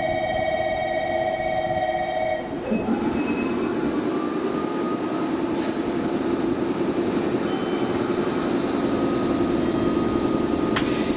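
Air compressor of a JNR 415 series electric train standing in the station: a steady whine of several pitches stops about two and a half seconds in, then the compressor starts, rising briefly in pitch and settling into a steady low drone.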